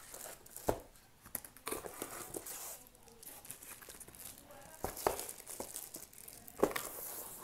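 Plastic wrap crinkling and cardboard packaging rustling as a shrink-wrapped portable DVD player is handled and lifted out of its box, with a few sharp knocks of cardboard and foam.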